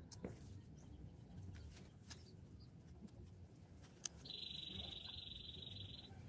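Faint clicks and rustles of hands packing a crumbly mix into a cardboard mould around a wire frame. About four seconds in, a high, even trill from a small animal starts and runs for about two seconds.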